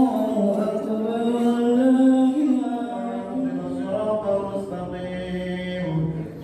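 A voice chanting unaccompanied in a melodic Islamic style, with long held notes that glide up and down.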